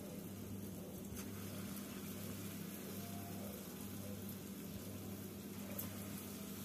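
Palm-fruit batter fritters frying in hot oil in an aluminium kadai: a faint, steady sizzle and bubbling as the batter balls are dropped in, over a low steady hum.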